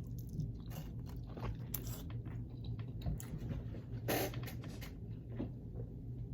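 A person biting and chewing Wingstop chicken wings close to the microphone: wet mouth noises with scattered short crunches, the loudest about four seconds in.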